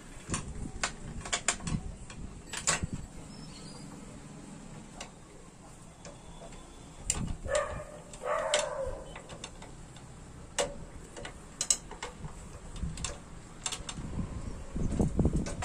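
Metal hand tools and bolts clinking and tapping against a moped's steel frame during assembly, in scattered irregular clicks, with a longer scraping rattle a little past the middle.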